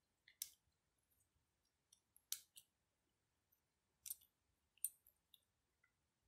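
A few sharp, light clicks and taps, some in pairs, with near silence between them: a Samsung Gear S2 smartwatch's opened casing and a small screwdriver being handled during disassembly.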